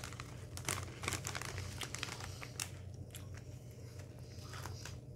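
Crinkling of a Lay's Wavy potato chip bag being handled, mixed with the crunch of chips being chewed. The crackling is thickest in the first three seconds and thins out after.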